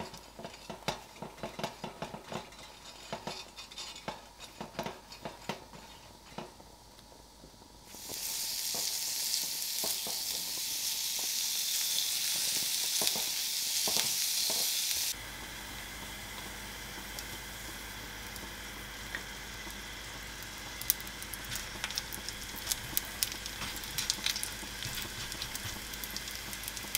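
Light taps and clicks of a silicone oil brush working oil over a hot ridged grill pan. About eight seconds in, a loud even sizzle starts as meat cooks on the grill pan. It cuts at about fifteen seconds to a quieter sizzle with frequent pops and crackles from round patties frying in oil on a flat griddle.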